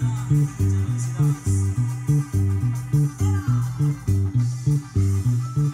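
Electric bass guitar played fingerstyle, a norteño zapateado bass line: short, separate notes alternating between a low root and a higher note in a steady bouncing rhythm of about three to four notes a second.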